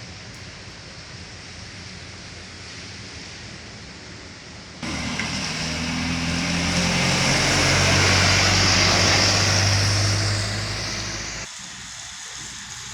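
Road traffic at a roadside: a steady murmur, then a heavy vehicle's engine passing close by. The engine comes in abruptly about five seconds in, grows louder, then fades and cuts off sharply near the end.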